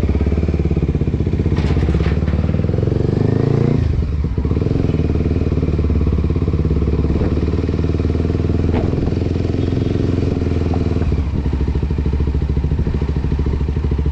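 Kawasaki Ninja 250 motorcycle engine running loud through a newly fitted Akrapovic aftermarket exhaust. The engine revs up briefly about two to four seconds in, then settles back to a steady idle.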